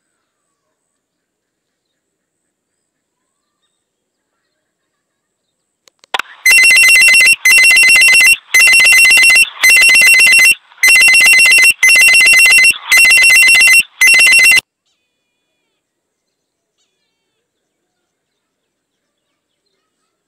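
Loud electronic ringing tone like a telephone or alarm bell, in about eight bursts of roughly a second each with short breaks, starting about six seconds in and cutting off about eight seconds later.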